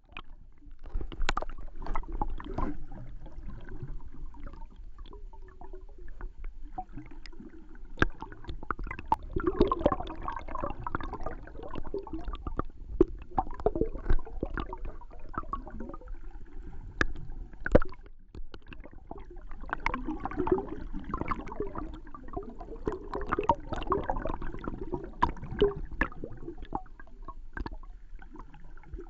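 Water bubbling and gurgling, heard from underwater, as paddle strokes stir up whirlpools and bubbles. It swells and fades every few seconds, with sharp clicks and knocks scattered throughout.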